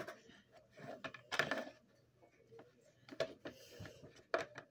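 Makeup being handled on a tabletop: a few light clicks and knocks of small makeup containers and a brush, with a short rustle about a second and a half in and a sharper click near the end.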